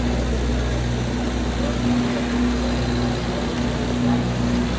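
Passenger train running, a steady low engine drone with a constant hum-like tone over an even rumble.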